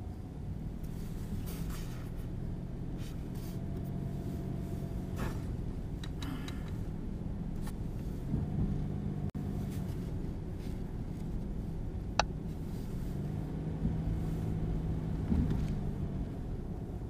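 Car engine hum and road noise inside the cabin, from a car driving slowly through town. The low drone is steady, with a few light ticks and one sharp click about twelve seconds in.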